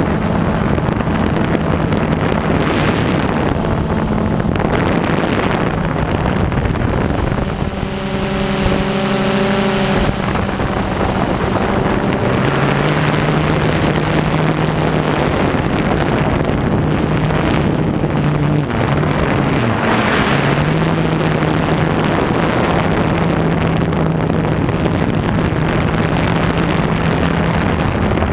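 Blade 350QX quadcopter's motors and propellers humming steadily in flight, heard from the camera on the drone with wind rushing over its microphone. The pitch of the hum shifts several times, most clearly about eight seconds in and again around twelve and nineteen seconds in.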